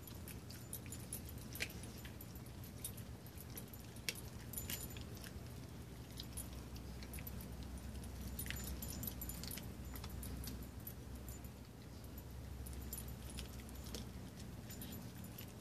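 Small dog chewing a raw chicken foot, crunching through the bones: irregular sharp crunches and clicks, a few louder snaps among them.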